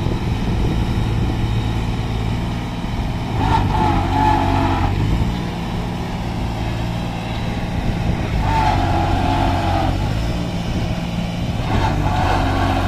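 New Holland 3630 4x4 tractor's diesel engine running under load as it pulls up a sand dune, its tyres digging into the sand. Three short higher-pitched sounds rise over the steady engine note, about four, eight and twelve seconds in.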